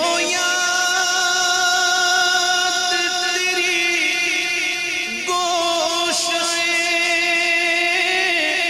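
A man singing a naat, an Urdu devotional poem, solo into a microphone. He draws out long held notes with small wavering ornaments, and his voice climbs higher about five seconds in and comes back down near the end.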